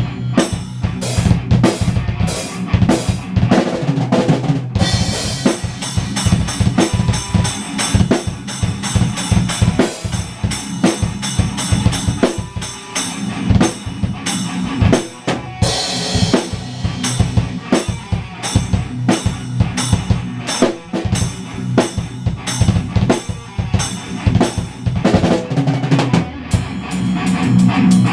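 A rock drum kit played live in a fast, dense pattern of bass drum and snare hits with cymbals, over a steady low sustained tone.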